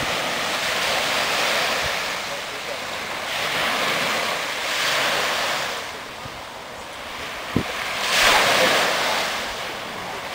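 Small surf breaking and washing up the shore, a hiss that swells and fades every few seconds, the loudest swell near the end, with wind buffeting the microphone.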